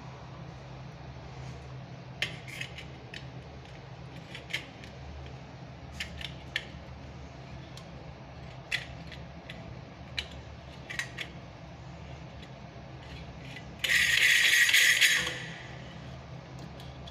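Small metal clicks and taps as chrome cover flanges are handled and pushed onto the threaded wall connectors for a bath mixer, scattered one or two at a time every second or so. About fourteen seconds in, a loud hissing noise lasts about a second and a half. A low steady hum runs underneath.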